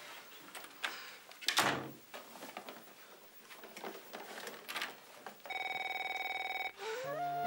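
Corded desk telephone giving one electronic, trilling ring about a second long, late on. Earlier, a single thump about a second and a half in stands out over light knocks and rustling.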